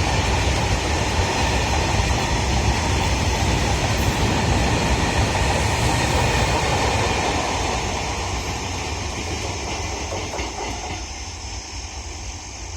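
Freight train rolling past: a steady rumble and clatter of wagons on the rails, fading away over the last five seconds as the train draws off.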